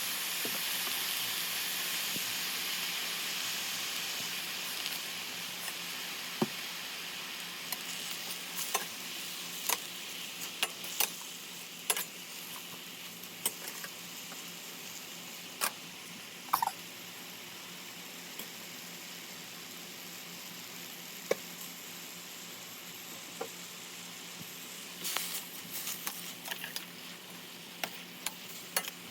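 Kailan (Chinese kale) stir-frying in a pan: a steady sizzle that fades over the first several seconds and then stays low, with scattered sharp clicks of a utensil against the pan.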